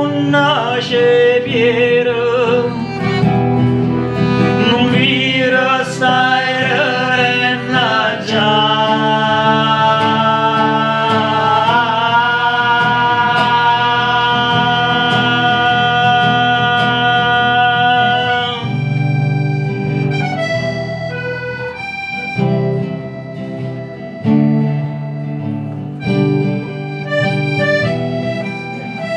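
A piano accordion and a classical guitar play live, with a singer's voice over the first part. A long held chord breaks off about two-thirds of the way through into plucked guitar notes and short accordion phrases.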